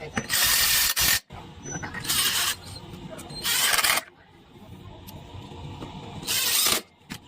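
Four short bursts of hissing, each about half a second long, the sound of a pressurised jet.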